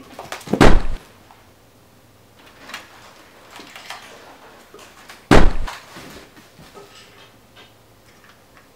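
Two loud bangs, the first about half a second in and the second about five seconds in, each a sudden hit with a deep thud that dies away quickly.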